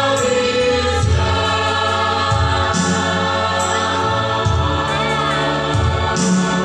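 Choir singing a gospel song in long held chords over backing music with a low bass line and sharp beats.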